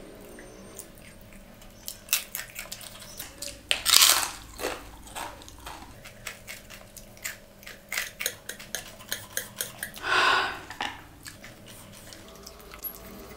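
Crunchy bites into a crisp fried snack, followed by crunching chews: a run of quick sharp crunches with two louder crunchy bites, about four seconds in and about ten seconds in.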